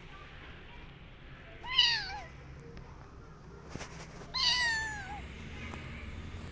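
A kitten meowing twice: a short meow about two seconds in, then a longer one about four and a half seconds in that falls in pitch.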